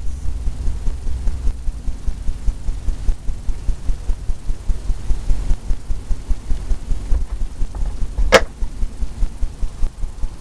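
A low, steady rumble pulsing several times a second, with one sharp click a little after eight seconds in.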